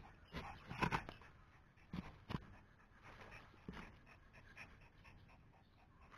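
A Pomeranian panting faintly in a few short bursts, mostly in the first four seconds.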